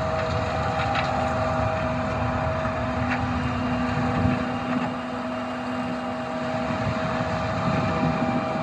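John Deere S770 combine running steadily while harvesting corn: a constant mechanical drone with a steady hum, with wind noise on the microphone.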